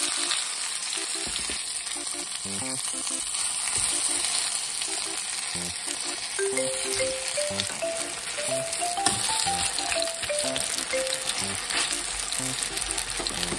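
Lotus-root slices stuffed with minced chicken sizzling in oil in a frying pan, turned over with metal tongs. Soft background music plays underneath, with a short rising-and-falling tune in the middle.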